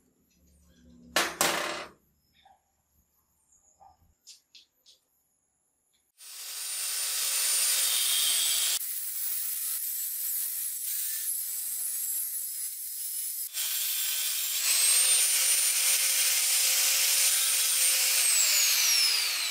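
Angle grinder with an abrasive cutoff disc cutting through a chrome steel motorcycle fork tube: a steady, loud grinding hiss with a whine in it, starting about six seconds in and easing briefly twice, its whine falling near the end as the disc spins down. Before it, a single sharp knock about a second in and a few light clicks.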